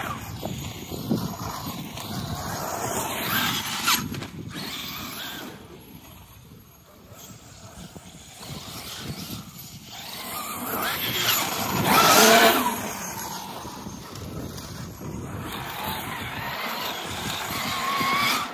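Electric Losi 5T 1/5-scale RC truck, converted to a Hobbywing 800 kV brushless motor on 8S, driven hard: a motor whine that rises and falls in pitch with the throttle, over tyre noise on loose gravel. It is loudest about twelve seconds in as the truck comes close.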